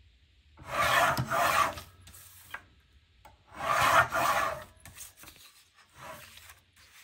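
Paper trimmer's cutting head pushed along its steel rails, slicing through a printed card sheet with a rasping sound, two strokes of about a second each, then a fainter shorter one near the end.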